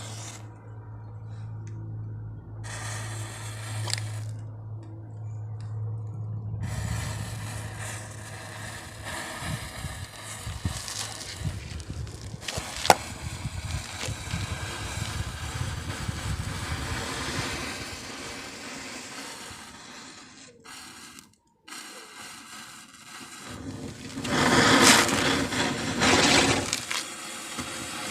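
Matchsticks catching fire one after another in a chain, a continuous crackling hiss with a sharp crack about halfway through. A louder hissing flare-up comes near the end.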